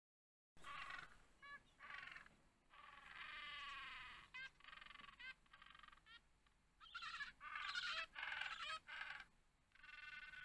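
Penguins calling: a string of harsh, pitched calls, some long and drawn out, others short and clipped, starting about half a second in and loudest a little past the middle.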